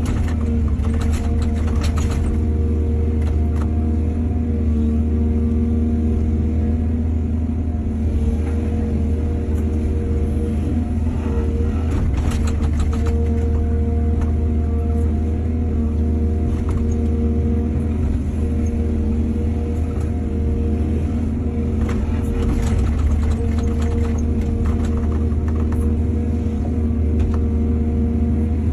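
Excavator's diesel engine running steadily under load, with short bursts of clatter about every ten seconds.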